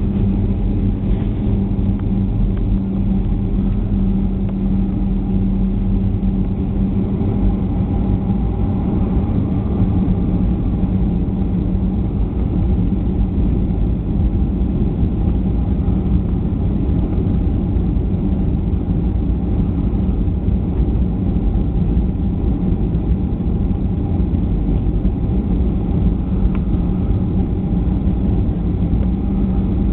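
Jet airliner cabin noise heard from a window seat during the descent to land: a steady drone of engines and airflow with a constant low hum and a fainter steady higher tone.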